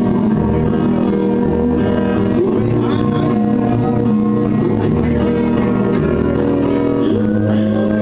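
Country karaoke backing track playing through a PA, guitar and bass carrying the tune, with a man's voice singing along into the microphone only in places.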